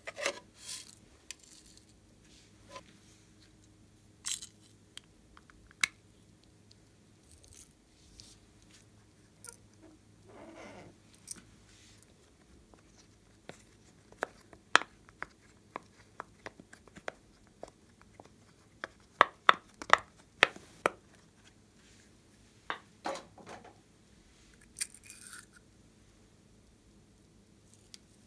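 Scattered sharp clicks and pops from a silicone pop-it fidget toy being pressed, thickest through the middle and latter part, among softer handling and tapping of plastic containers.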